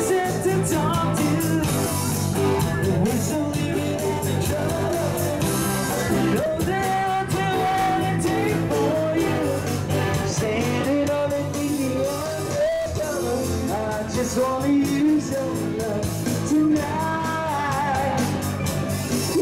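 Live band playing a song, with a singer carrying the melody over a steady beat.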